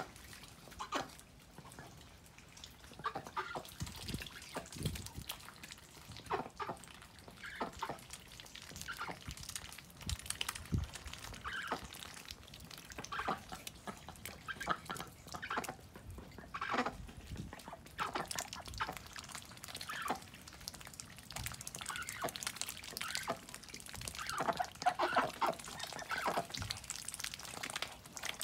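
Ducks dabbling and splashing in shallow rain puddles: irregular wet slurps, splashes and drips, coming thicker near the end.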